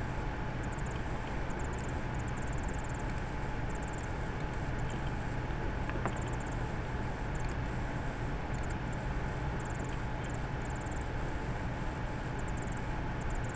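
Steady electrical hiss and low hum with a faint thin whine, and a faint intermittent high-pitched chirping pattern; a single faint click about six seconds in.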